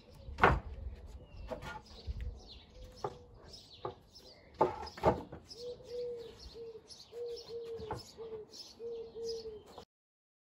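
A pigeon cooing in an even run of short low notes through the second half, with small birds chirping high throughout. A few sharp knocks of wooden boards being handled, the loudest about half a second in. The sound cuts off suddenly near the end.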